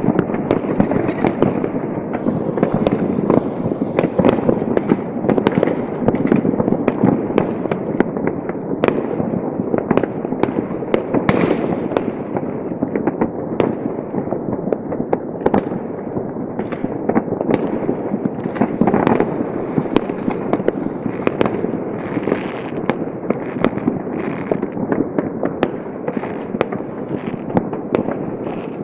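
New Year fireworks and firecrackers going off in a dense, continuous barrage, with many bangs and cracks overlapping without a pause.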